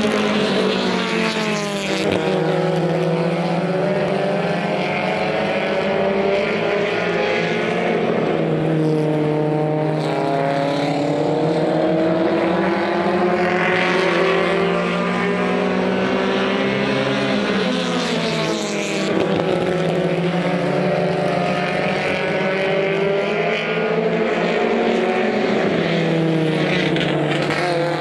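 Four-cylinder mini stock race car engine running hard at speed. Its pitch falls and then climbs again several times, about every eight seconds, as the car slows for the turns and accelerates out of them.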